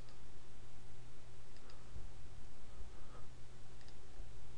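Computer mouse button clicking, a few faint quick double clicks, over a steady low hum.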